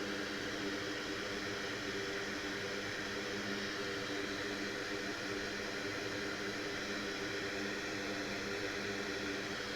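Steady whirring hiss of a blower fan, with a faint hum underneath.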